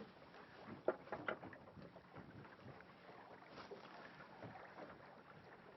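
Faint water and wind noise around a small fishing boat, with a couple of short light knocks about a second in.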